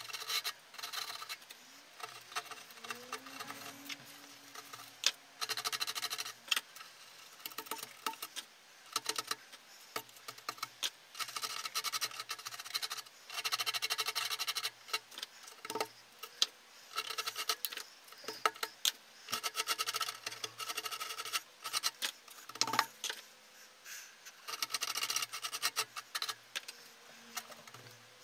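A hand tool scraping and carving soft insulation lining in runs of short strokes, with brief pauses between the runs, cutting a shallow recess around the kiln's opening for a rope door seal.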